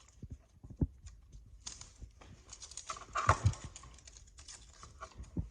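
Irregular clicks, taps and rustling of electrical cable and hand tools being handled while the paper filler is pulled off the stripped wires, with one louder knock about three seconds in.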